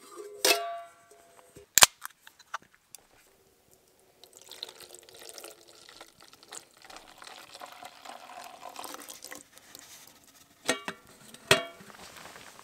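A couple of sharp clicks, then cider poured from a can into a small metal pot: a several-second splashing, gurgling pour. Two metal clanks near the end as the pot is handled and set over the campfire.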